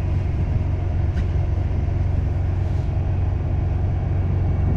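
Steady low engine rumble, with a faint click about a second in.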